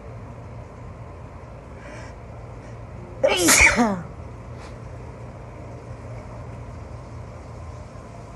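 A single stifled human sneeze about three seconds in, short, with a brief voiced cry that falls in pitch.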